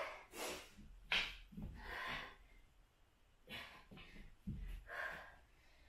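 A woman breathing hard from exertion: about five short, forceful breaths, a second or so apart.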